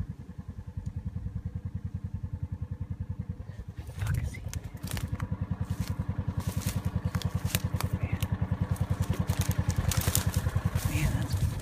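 Off-road utility vehicle's engine idling with a steady, even pulse. From about four seconds in, dry brush and grass crackle and scrape as someone pushes through on foot.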